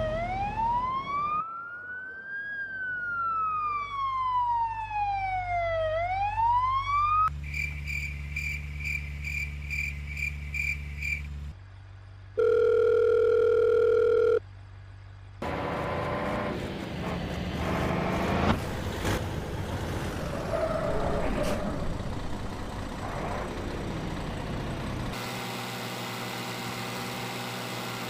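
Electronic tones played one after another: a siren-like wail sweeping slowly up and down, then a pulsing beep about two or three times a second, a loud steady tone like a dial tone for about two seconds, a noisy jumbled stretch, and a steady hum near the end.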